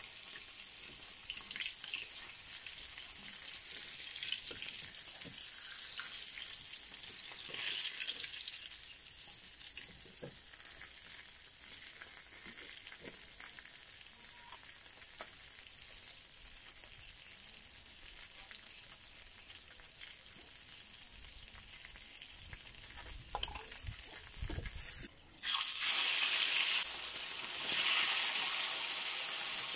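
Whole tilapia sizzling in hot cooking oil in a wok, with light scrapes and taps of a wooden spatula as the fish are lifted and turned. The sizzle fades through the middle, then suddenly becomes much louder near the end as the fish are turned over into the oil.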